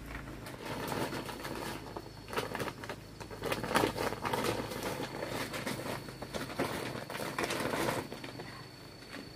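Dry, brittle pieces rustling and crackling as they are tipped off a plastic sheet into a woven plastic sack, with the sack crinkling as it is handled and lifted.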